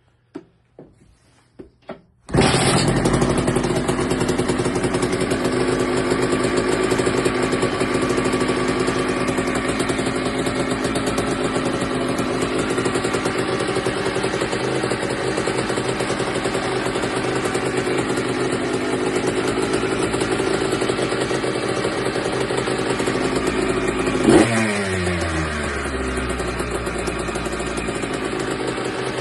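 Kawasaki KX65 two-stroke dirt bike engine: a few light knocks, then it fires about two seconds in and runs steadily. Near the end a quick blip of the throttle, the pitch falling back to a lower idle.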